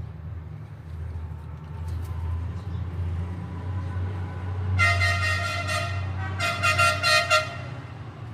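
A vehicle horn sounding twice, each blast about a second long, over a steady low rumble of engines.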